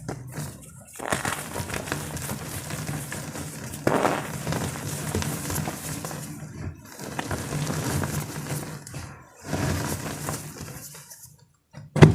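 Blocks of gym chalk being crushed, crumbling and crackling in long stretches broken by brief pauses, with a sharp knock at the very end.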